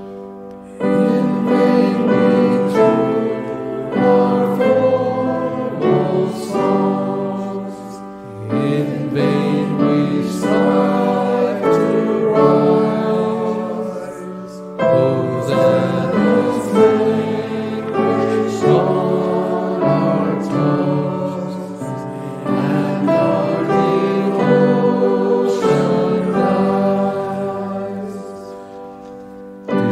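Congregation singing a hymn with instrumental accompaniment, in sung phrases broken by short pauses near the start, about eight and fifteen seconds in, and again near the end.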